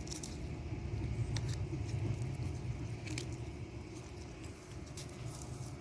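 Crisp snaps and crunches of fresh pea pods, a few scattered clicks, as a dog eats peas from the pod. Under them runs a low steady rumble, loudest about two seconds in.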